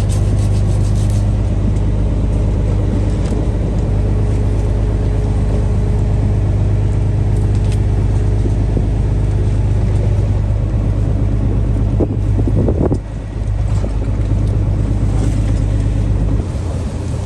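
Fishing boat's engine running steadily, a loud low drone with a hum of several even tones, dipping briefly about three quarters of the way through.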